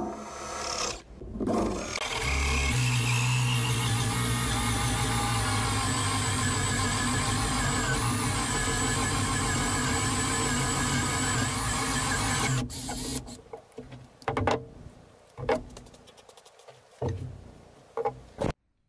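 Cordless drill driving a 1 3/4-inch hole saw through a wooden board: a short burst about a second in, then about ten seconds of steady motor whine as the saw cuts, stopping suddenly. A few scattered sharp knocks and clicks follow.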